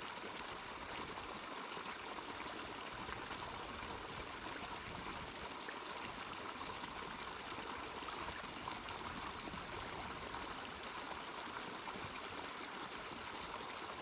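A mountain stream running steadily: a continuous, even rush of flowing water.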